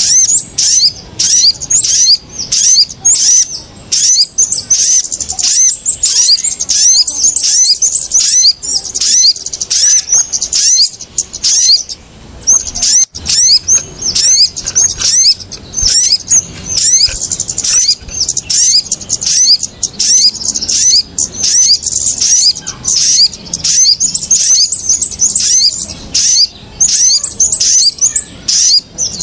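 Bird-lure recording of kemade and sogon, small songbirds, calling in a noisy, agitated chorus: a dense stream of rapid, high-pitched chirps with hardly a pause, the kind of alarm-like clamour played to draw small birds down to birdlime.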